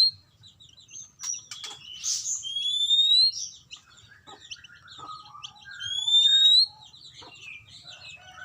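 Oriental magpie-robin song played as a lure call. Long, high rising whistles repeat about every three and a half seconds among fast chattering notes, with lower, shorter calls joining from about halfway through.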